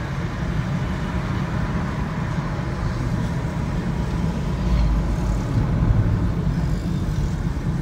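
Steady road and engine rumble heard from inside a moving car's cabin, swelling slightly about five seconds in.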